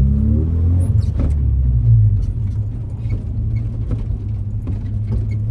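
1990 Mazda Miata's 1.6-litre four-cylinder engine running while the car is driven, heard from inside the open-roll-bar cabin: louder for about the first two seconds, then settling to a steady lower drone. Scattered light clicks and rattles from the car come over it.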